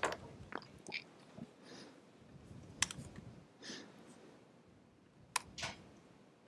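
Faint, irregular keystrokes and clicks on a computer keyboard, with two sharper clicks about three and five and a half seconds in.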